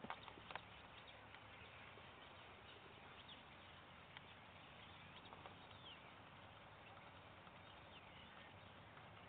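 Near silence: faint outdoor field ambience, with a few soft clicks in the first second and faint, scattered bird chirps.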